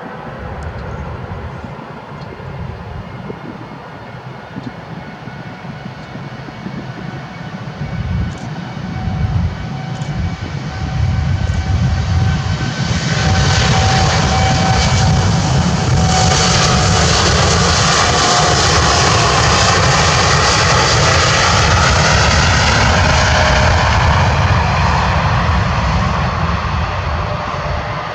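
Boeing 787-9 Dreamliner's turbofan engines at takeoff thrust, growing much louder about halfway through as the jet rolls past, with the engine whine dropping in pitch as it passes and easing slightly near the end.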